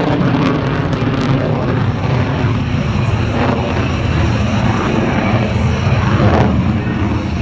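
Military jet aircraft flying high overhead, its engine noise a loud, steady rumble throughout.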